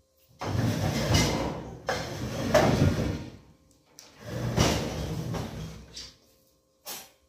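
Freestanding kitchen stove being shoved across a ceramic tile floor: two long scrapes of its feet, each a couple of seconds, followed by a short knock near the end.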